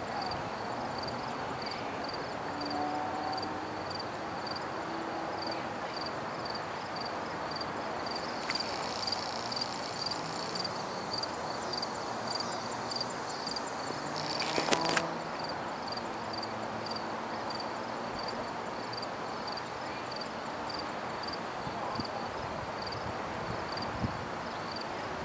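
Crickets chirping steadily, a short high chirp about twice a second, over a steady wash of outdoor background noise. A brief louder knock about fifteen seconds in.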